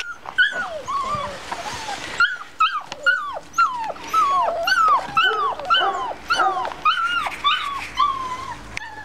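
Bernese mountain dog puppies whining: a steady run of short high whines, each falling in pitch, about three a second, with a brief pause about two seconds in.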